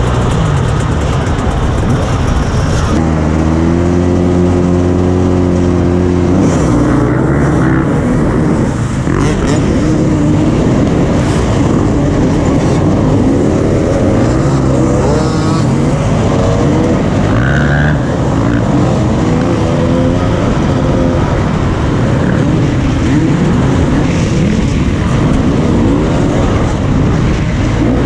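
A pack of enduro dirt bikes revving and accelerating together, their engines rising and falling in pitch with the throttle. About three seconds in, one engine is held at a steady high rev for a few seconds.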